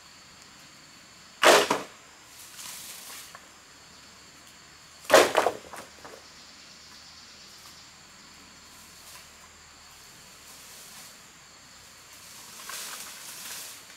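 Two sharp wooden knocks about three and a half seconds apart, each with a short rattle after it, as bamboo poles and wood are handled. Softer rustling and scraping on the forest floor follow, with a steady high insect trill in the background.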